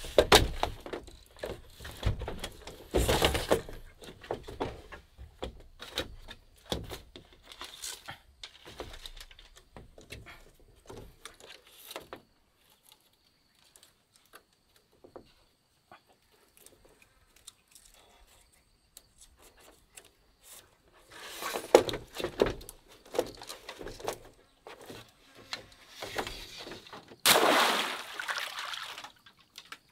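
Hollow knocks and rattles on a bamboo raft floor as a fish is taken out of a woven bamboo fish trap and flaps on the slats, with a quieter stretch midway and another burst of knocks later. Near the end comes a splash about two seconds long as the trap goes into the river.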